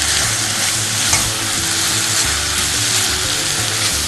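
Minced meat and onion frying in a saucepan, sizzling steadily while being stirred and turned over with a spatula.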